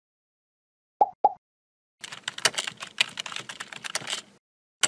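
Computer keyboard typing sound effect: a fast run of key clicks lasting about two seconds, then one sharp click near the end. Two short pops come about a second in.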